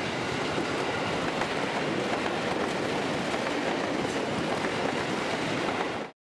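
Passing train: steady noise of its wheels running on the rails, cutting off abruptly about six seconds in.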